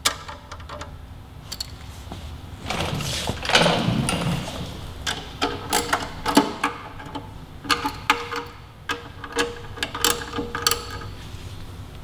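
Hand socket ratchet clicking in short runs as the front brake caliper bolts are tightened, with a brief rustling noise about three seconds in.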